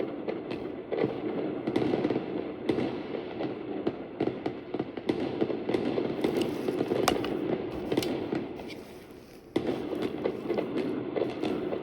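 Fireworks going off in a dense, continuous crackling barrage with many sharp pops. It fades away for a moment about nine seconds in, then resumes abruptly at full strength.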